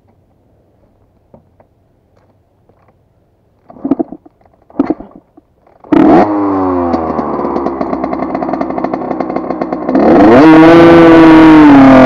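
Two-stroke 80cc dirt bike engine being kick-started: two short bursts as it turns over and fails to catch, then it fires about six seconds in, its pitch sliding down as it settles. About ten seconds in it is revved hard and held high.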